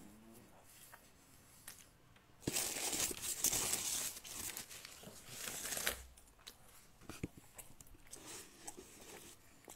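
A burst of rustling and crinkling, like paper or a wrapper being crumpled or handled close up, starting about two and a half seconds in and lasting about three and a half seconds, with scattered light clicks before and after.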